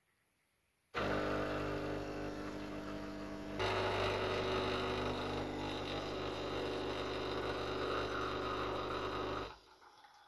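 Espresso machine pump running as a shot is pulled into a cup: it starts about a second in with a steady drone, grows louder and noisier a few seconds later, and cuts off sharply near the end.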